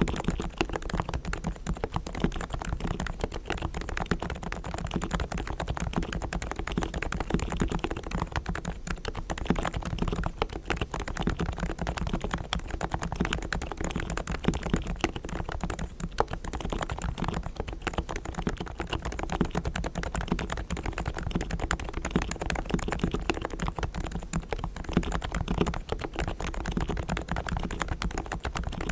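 Typing on a Realforce R3 tenkeyless Topre electrostatic capacitive keyboard with 45 g silent, evenly weighted switches, custom lubricated with Krytox and fitted with sound-damping foam: a fast, continuous run of keystrokes, several a second.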